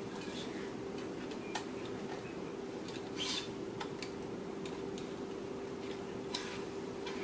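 Tennis string being woven by hand through the main strings of a racquet on a stringing machine: scattered light ticks and a short brushing swish about three seconds in, over a steady hum.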